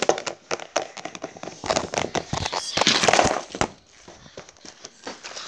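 Rapid, irregular clicks, taps and crackling from close handling, with a louder rustling stretch about three seconds in that drops away to fainter scattered clicks.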